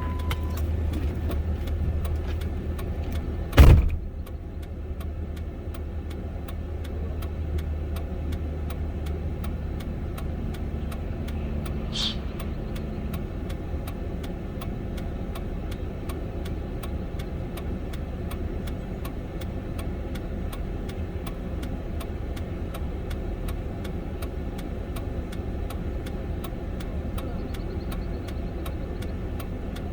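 Pickup truck engine idling with a steady low hum. A single loud thump about four seconds in, and faint, even ticking a few times a second throughout.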